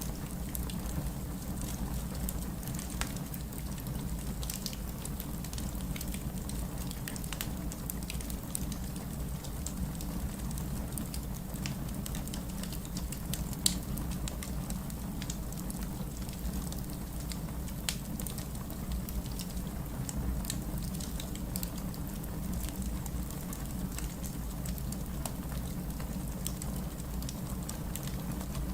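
Wood fire crackling in a fireplace: scattered sharp pops and snaps, one louder pop about halfway through, over a steady low rumble.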